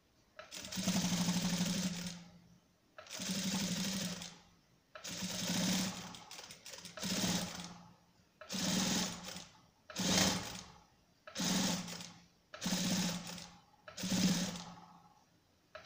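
Electric sewing machine stitching in short runs along the bound edge of a hand towel. There are about nine bursts of a second or two each, the longest first, with brief pauses between them as the fabric is turned and guided.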